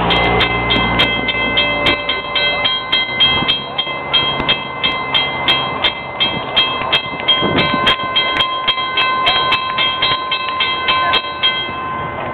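Railroad grade-crossing warning bells ringing in rapid, even strikes, the signal that a train is approaching, stopping near the end. A passing car rumbles through the crossing in the first couple of seconds.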